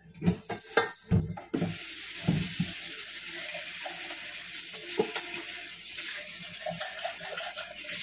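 A few knocks and clatters of kitchen utensils, then a tap running steadily into a sink.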